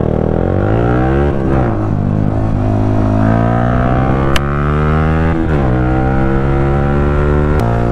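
Yamaha R15 V3's single-cylinder engine pulling hard, its pitch climbing steadily and falling back at each upshift: about a second and a half in, again about five and a half seconds in, and once more near the end.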